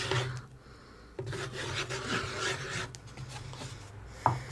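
Glue being rubbed by hand across a laser-cut plywood plate: a dry scraping rub on the wood in two stretches with a short pause between. Near the end comes a single sharp wooden knock.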